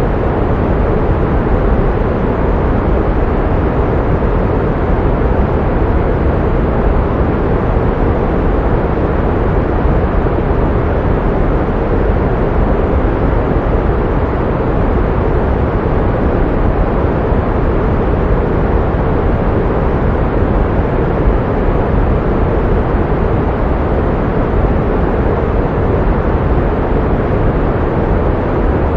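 Pink noise: a steady, even hiss weighted toward the low end, with no changes or events.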